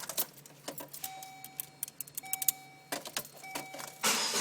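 Car keys jingling and clicking at the ignition, three steady electronic beeps, then about four seconds in the car's engine starts and keeps running.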